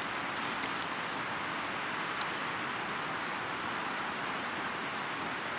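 Steady outdoor wind noise, an even rushing hiss, with a few faint ticks scattered through it.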